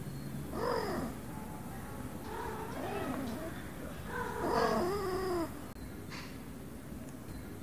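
Domestic cat trilling: three chirpy calls that rise and fall in pitch, the last one the longest and loudest.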